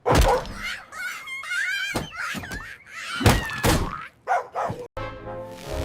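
Cartoon sound effects: a heavy thunk, then a wavering high squeaky cry and several more knocks. Brass-led cartoon music comes in about five seconds in.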